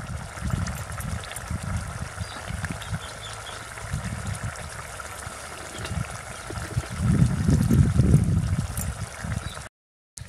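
Egg curry with vegetables bubbling at the boil in a metal pot over a wood fire: a steady simmering gurgle with small pops. Low wind rumble buffets the microphone in gusts and is loudest about seven to eight seconds in. The sound cuts out for a moment just before the end.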